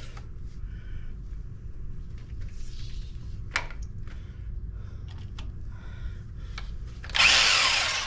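Hammer drill fitted with a small bit starts suddenly near the end and drills for about a second, then runs down. Before it there are only a few light clicks over a low steady hum.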